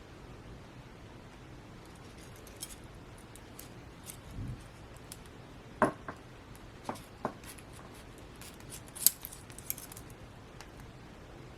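Scattered light clicks and small taps from handling a small packaged item by hand, with a few sharper clicks between about six and ten seconds in and a soft thud a little before them.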